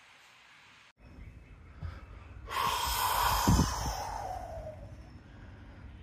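A hand pressing and rubbing the cotton cover of a Thai floor mattress: a loud rustling swish starting about two and a half seconds in, with a few soft thumps.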